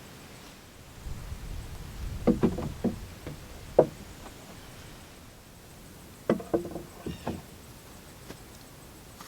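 Knocks and clatters of wood on wood, several sharp strikes with a brief ring, in two clusters a few seconds apart.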